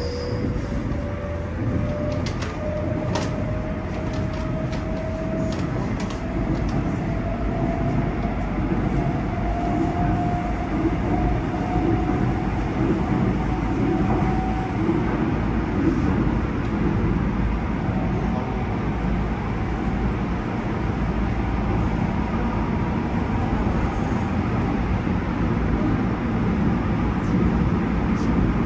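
Seoul Subway Line 7 train heard from inside the car as it runs between stations: a steady rumble of the wheels on the rails. Over the first fifteen seconds or so a motor whine rises slowly in pitch as the train picks up speed, then fades into the rumble.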